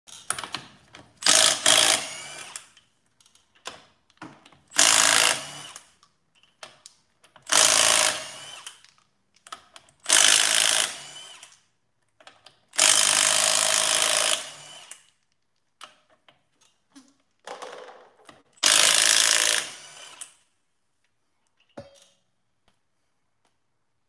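Impact wrench hammering the lug nuts off a truck's front wheel: six bursts of one to two seconds each with short pauses between, then a single sharp knock near the end.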